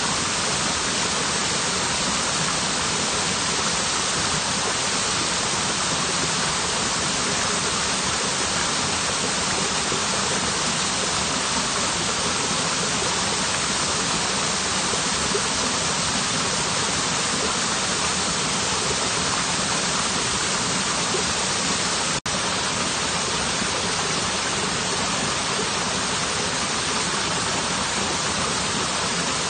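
Waterfall, a steady, even rush of falling water with no other sounds; it cuts out for an instant about three quarters of the way through.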